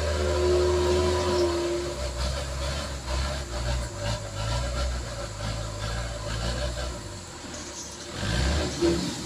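Loaded dump truck's diesel engine pulling under load as the tilted truck works slowly along a muddy, rutted track, running low and steady. It eases off about seven seconds in and picks up again briefly near the end.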